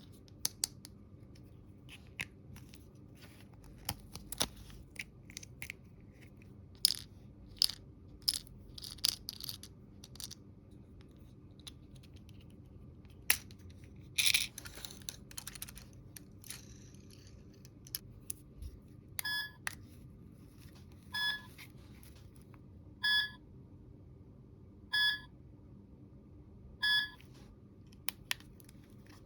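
Small plastic toy pieces being handled, with scattered light clicks and taps and a brief rustle. In the second half a toy's electronic sound gives five short beeps about two seconds apart.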